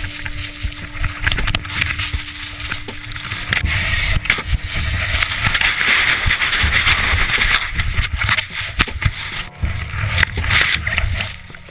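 A loud rushing noise with heavy low buffeting and crackling on the microphone, swelling about halfway through and again near the end.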